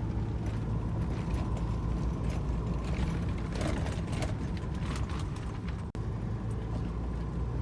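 Ford F-350 pickup's engine running steadily at a low, even pitch, with a few light clicks and ticks about three to four seconds in.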